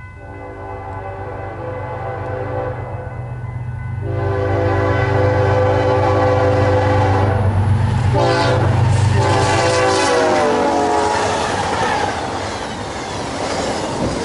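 Diesel locomotives of a BNSF intermodal freight train approaching at speed, sounding a multi-chime air horn in three long blasts over the low engine rumble. The horn pitch drops as the lead unit passes about ten seconds in, and then the rush of the double-stack container cars going by takes over.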